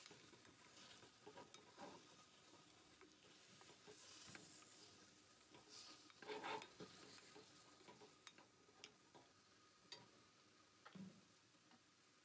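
Faint stirring: a spoon scraping and turning spiced chicken pieces in a metal pan over a light sizzle, with small clicks and taps of the spoon against the pan.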